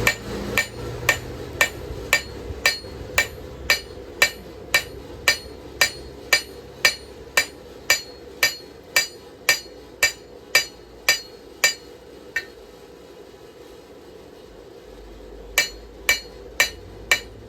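Hand hammer striking hot steel on an anvil at about two blows a second, each with a short metallic ring, forging the plunge into a knife blade. The blows stop for about three seconds near the end, then start again.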